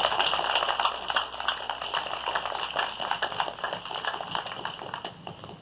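Audience applauding with many hand claps, loudest at the start and thinning out over the last couple of seconds.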